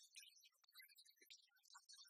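Near silence, with faint, scattered short rustles and taps of a cardboard box and its paper insert and cables being handled.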